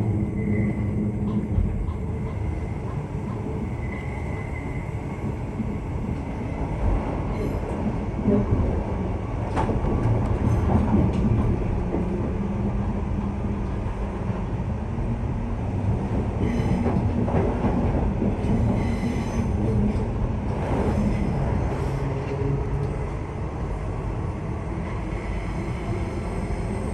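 Electric suburban passenger train running on the rails: a steady rumble of wheels on track, with a faint high tone coming and going and a few sharp clicks about ten seconds in.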